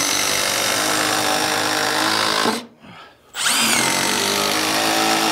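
Milwaukee M12 Surge hydraulic impact driver running screws into a 2x4. It runs, cuts off about two and a half seconds in, then starts again about a second later with a rising whine as it spins up.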